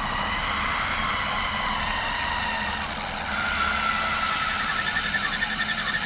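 Ominous droning horror score: a dense, rumbling drone with sustained high tones, joined about halfway through by a pulsing, wavering tone.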